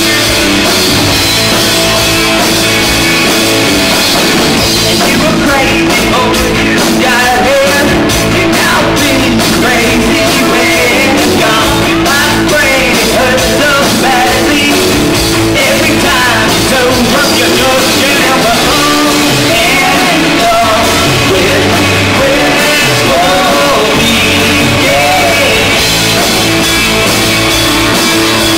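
Live rock band playing loud: electric guitars, bass guitar and drum kit, with a lead vocal sung over them.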